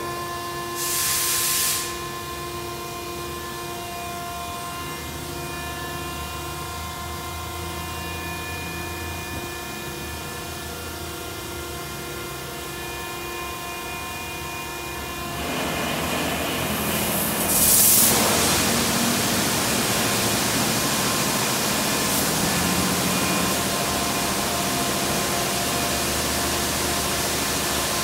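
D&S Quicksilver touchless in-bay car wash running: a steady machinery whine with several tones and a brief hiss about a second in, then about halfway the loud, even hiss of its high-pressure spray comes on, with a sharper burst a couple of seconds later.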